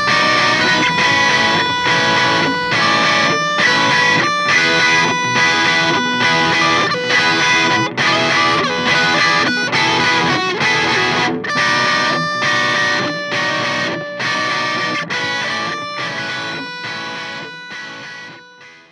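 Guitar-driven outro music with a steady beat, fading out near the end.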